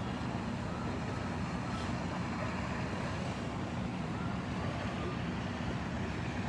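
A fire truck's engine running steadily, a low even hum with no change in pitch.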